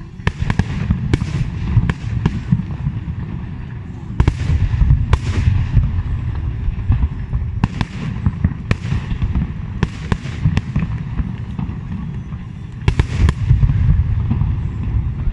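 Aerial fireworks display: a steady deep rumble of shell bursts with a dozen or more sharp, echoing bangs, heaviest in a cluster near the end.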